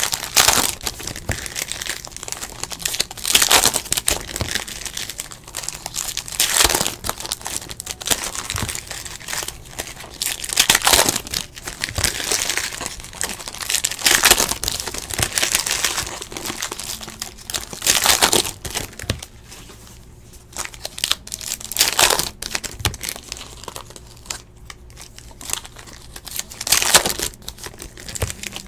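Foil wrappers of Panini Hoops basketball card packs being torn open and crinkled by hand, a crackly rustling that swells in irregular bursts every few seconds.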